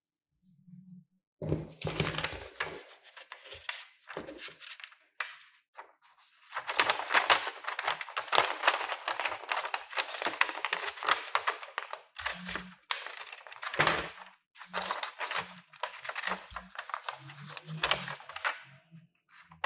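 Steel scissors cutting through a sheet of painted paper: long runs of crisp crackling snips with paper rustling and handling, starting about a second and a half in. A few low soft thumps come in between.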